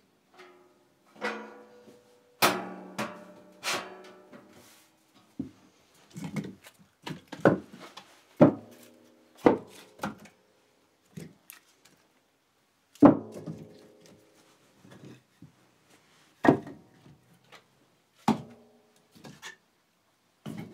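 Split firewood logs being stacked by hand, knocking against each other and the floor in a string of hollow wooden clonks about a second apart.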